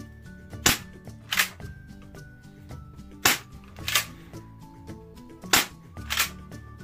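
HA117 Glock-style spring-action BB pistol being shot: sharp snaps in three pairs, the two snaps of each pair under a second apart.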